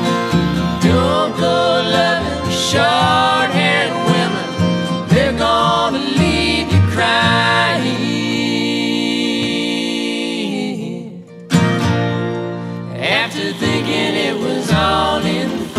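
Background music: a song with guitar and a singing voice, which drops out for a moment about two-thirds of the way through and then comes back.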